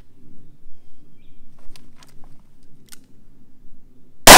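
A few faint clicks as a 2.5-inch Smith & Wesson Combat Magnum revolver is drawn, then near the end a single loud gunshot from it that rings out and dies away slowly.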